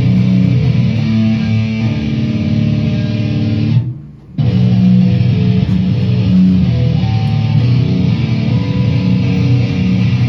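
Live band jam led by guitar, with bass underneath, playing loud sustained low notes; the band stops dead for half a second about four seconds in, then comes back in.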